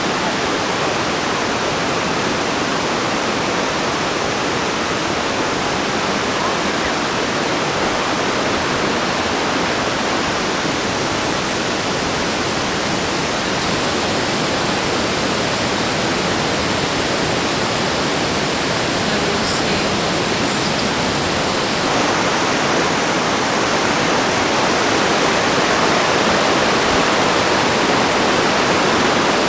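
Fukiware Falls and its river rapids rushing, a dense, steady roar of water that grows a little louder about three-quarters of the way through.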